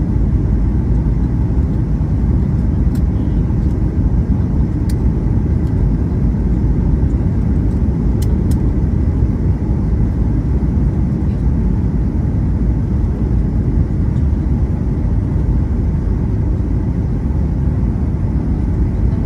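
Airliner cabin noise on approach: a steady, loud, low roar of engines and rushing air heard from inside the passenger cabin, with a few faint clicks.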